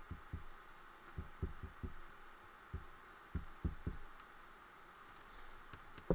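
Soft, dull taps and bumps on a tabletop as Fabri-Tac glue is dotted around the inside of a book cover, irregular, two or three a second, with a sharper click at the very end.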